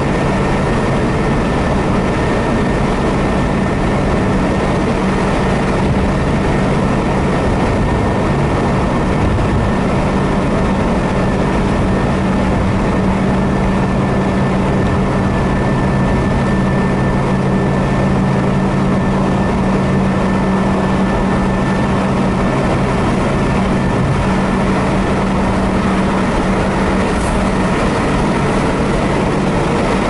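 A vehicle driving steadily along a highway: even road and tyre noise with a steady low engine hum.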